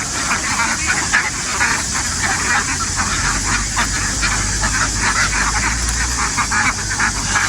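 A large flock of ducks quacking and chattering all at once in a dense, continuous din, with a low steady hum underneath.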